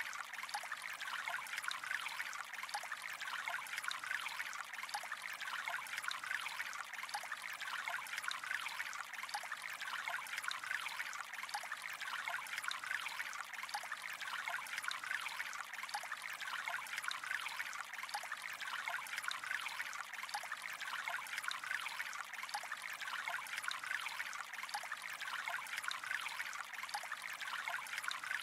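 Gentle flowing water trickling steadily, with fine splashing detail and no change in level.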